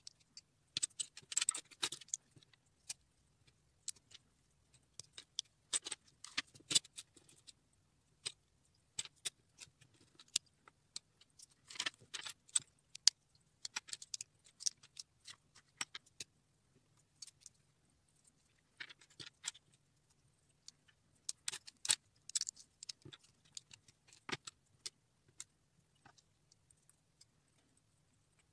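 Small plastic LEGO pieces clicking and rattling as they are handled and fitted together, in irregular clusters of short, sharp clicks.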